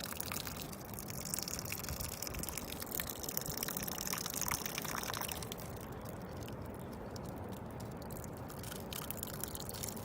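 Water pouring from a watering can onto seedlings, stopping about halfway through, with wind rumbling on the microphone throughout.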